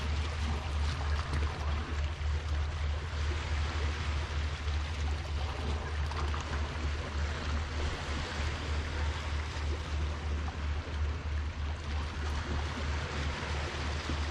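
Seawater washing against a concrete seawall as a steady hiss, over a constant low rumble of wind on the microphone.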